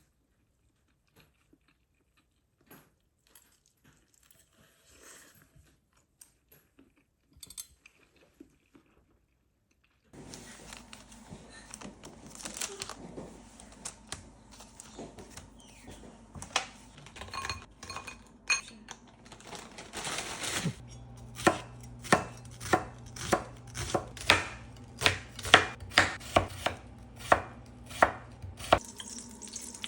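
Knife chopping food on a cutting board. After a near-silent start with a few faint taps, scattered cuts come over a steady background hum, then a regular run of knife strokes at about two a second near the end.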